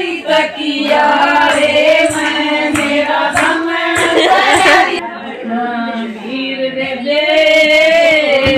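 Women singing together, with long held, wavering notes; the sound turns duller about five seconds in.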